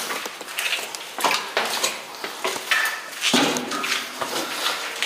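Irregular metallic clanks and rattles: loose metal being knocked or stepped on.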